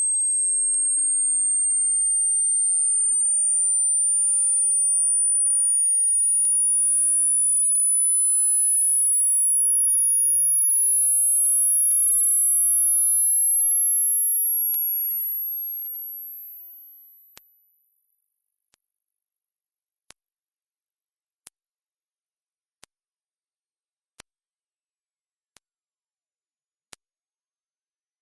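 A single pure sine test tone, very high-pitched, stepping up in pitch every second or so and growing slightly louder: a treble test tone climbing toward the upper limit of headphones and hearing.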